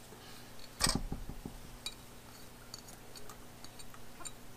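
Light kitchen clinks as chopped green bell pepper is added: a small ceramic dish and a spoon knocking against a stainless steel mixing bowl. One sharper knock about a second in, a few softer ones right after, then scattered faint ticks.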